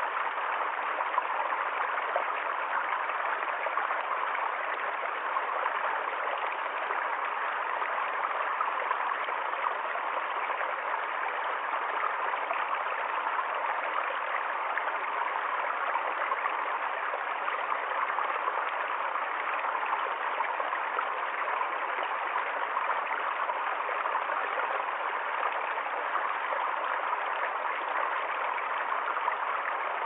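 Small rocky stream running steadily, water splashing over two little cascades between stones in an even rush.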